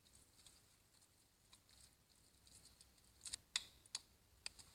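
Near silence with a few faint, sharp clicks, most of them bunched together about three to four and a half seconds in.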